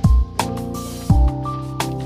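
Background music with a beat: deep drum hits and sharp percussive strikes over held chords.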